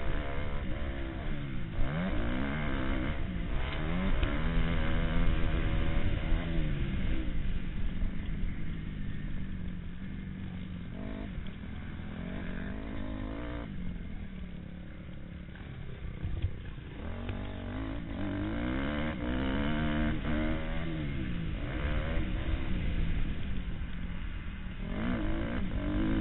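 Motocross motorcycle engine heard from on board the bike, revving up and dropping back over and over as the rider works the throttle and shifts through the gears. It eases off through a quieter stretch about halfway through, then pulls hard again.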